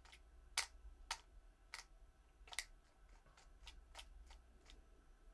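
Small sharp clicks of a compact digital camera's buttons pressed by thumb, at irregular intervals: four clearer ones in the first three seconds, then several fainter ones.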